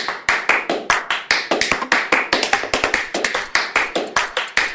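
A rapid, uneven series of sharp slapping hits, about five a second, varying in loudness.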